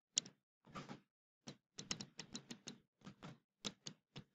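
Faint stylus clicking and scratching on a tablet surface while handwriting: an irregular run of short taps and brief strokes, quickening near the end.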